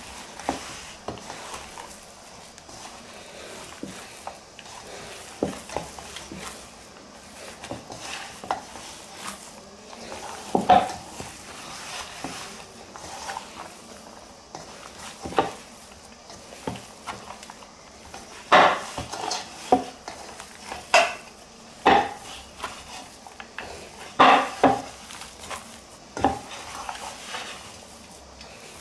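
Hands kneading millet-flour and vegetable dough in a stainless steel bowl: rustling and pressing, with irregular knocks and clinks against the steel, several of them sharp and loud in the second half.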